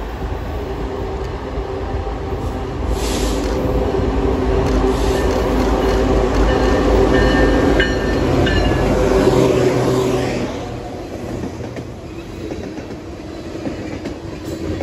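Two BNSF diesel locomotives, a GE AC4400CW leading and an EMD SD70MAC trailing, pass close at track speed, their engines growing steadily louder. Just after ten seconds the engine sound drops off into the lower, steady rumble and clatter of freight cars rolling by on the rails.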